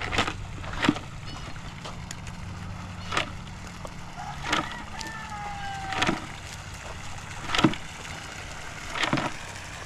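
Footsteps on farm ground, a thud about every one and a half seconds, over a steady low hum. A short falling squeak comes about halfway through.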